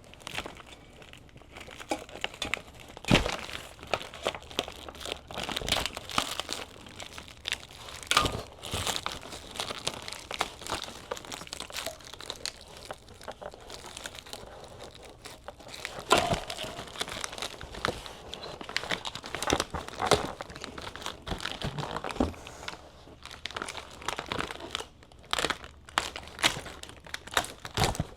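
Hands working on a motorcycle's new parts: irregular crinkling and rustling with scattered clicks and several sharp knocks as parts are handled and test-fitted.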